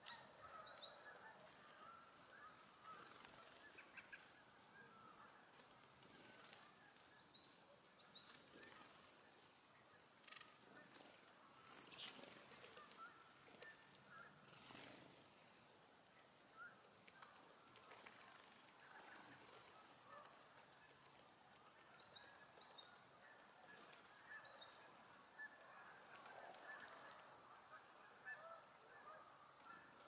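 A distant flock of birds calling continually. A few louder, high, sharp calls from small songbirds close by stand out between about 11 and 15 seconds in.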